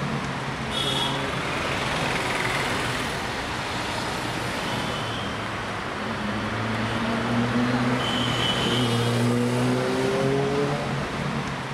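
Road traffic: motor vehicle engines running and passing over a steady traffic hiss, their pitch rising as they accelerate, most clearly in the second half.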